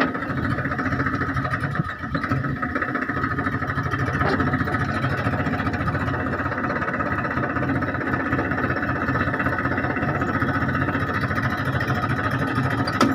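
Farm tractor engine running steadily while it pulls a tine cultivator through dry soil.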